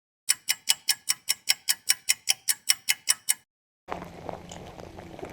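Clock-style ticking sound effect, about sixteen even, crisp ticks at roughly five a second, spliced in with dead silence just before and after.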